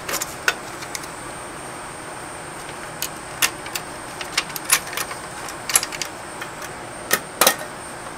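A dozen or so sharp plastic clicks and snaps, irregularly spaced, as the tabs holding the disc tray door of a 1991 Sony CDP-491 CD player are worked loose. A faint steady high whine runs underneath.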